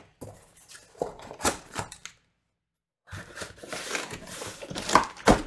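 Packaging being handled while unboxing: plastic and cardboard crinkling and rustling in several stretches, with a brief pause just after two seconds in and a sharp knock near the end.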